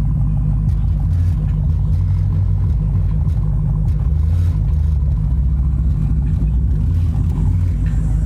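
Bass-heavy music playing loud through a car's Harman Kardon stereo, deep bass notes changing every second or so.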